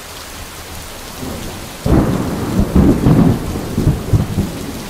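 Steady rain falling, with thunder rumbling in about two seconds in, swelling and fading in several low rolls.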